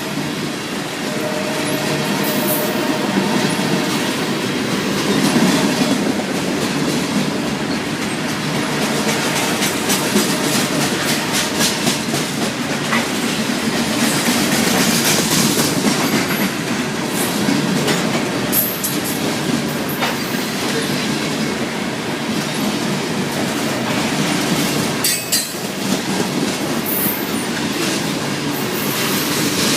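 Train cars rolling past at close range: a steady running noise with the wheels clicking and clattering over the rail joints.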